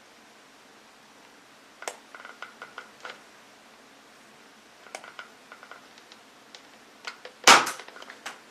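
Plastic toy gun being handled, with scattered light mechanical clicks and rattles, then one much louder sharp snap about seven and a half seconds in.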